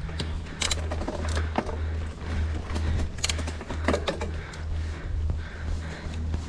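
Mountain bike riding over a rough trail: a low rumble pulsing about twice a second, with scattered clicks and knocks from the bike rattling.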